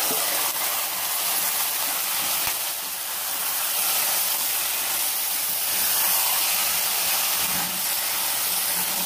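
Marinated chicken pieces sizzling in hot oil with fried onions in a pressure cooker pan as they are stirred with a ladle: a steady, dense hiss of the meat searing.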